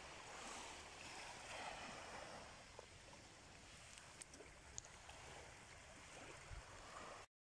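Faint, steady wash of small waves on a sandy shore, with a few light clicks; it cuts off abruptly near the end.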